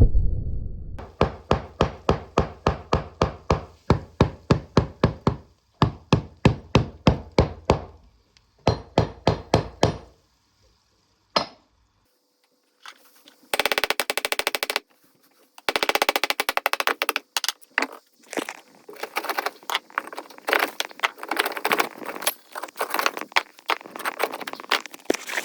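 Masonry being broken out with a hammer: runs of rapid, evenly spaced strikes, about four a second, then after a pause a brief very fast chatter and dense irregular knocking and scraping.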